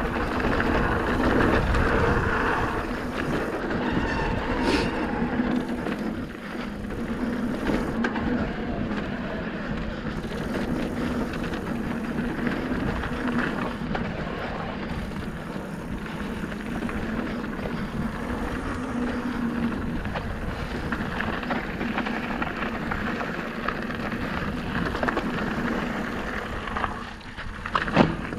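Electric mountain bike rolling fast down a dirt and gravel trail: its tyres crunch over the loose surface and the bike rattles over bumps. Near the end it goes briefly quieter, then gives one sharp knock.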